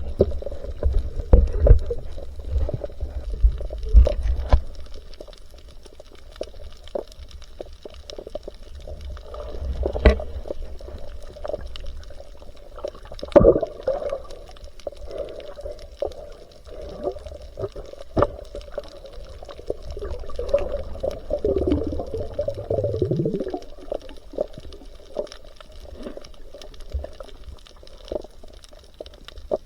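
Water sloshing and gurgling around a camera in the sea, with scattered sharp clicks and a falling gurgle a little past the middle.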